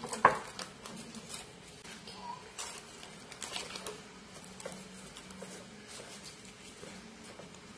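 Plastic cling wrap crinkling and rustling as it is stretched over a bowl and pressed down around the rim. There is a sharp crackle just after the start, then scattered crinkles that thin out after about four seconds.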